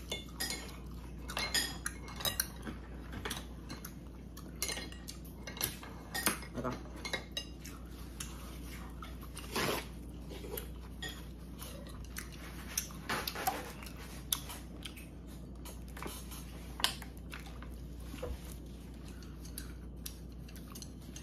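Chopsticks and a spoon tapping and clinking against ceramic bowls and a plate in scattered light clicks, with some chewing.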